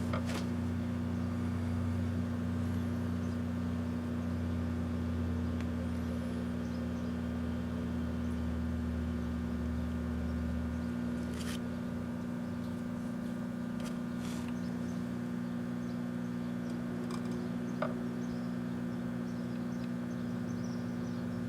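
Microwave oven running with a steady electrical hum and fan noise; its deeper low hum drops away about halfway through. There is no crackle of arcing from the credit cards inside.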